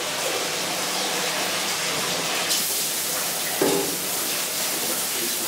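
Whey draining in a steady stream from a hoisted cheesecloth bag of curd and splashing into the copper cheese kettle below, a continuous hissing pour. A brief metallic knock about three and a half seconds in.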